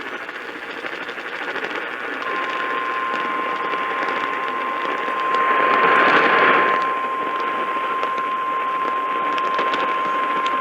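Weather radio receiver hissing with static, then the NOAA Weather Radio warning alarm tone: one steady, unbroken beep that comes in about two seconds in and holds on. The tone is the alert that comes before a warning message is read out. The static swells louder for about a second around the middle.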